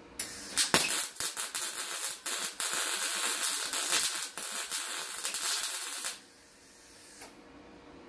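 MIG welder's arc crackling as it welds the edge of a sheet-steel door panel, starting and stopping in short bursts at first, then running more steadily before it cuts off about six seconds in.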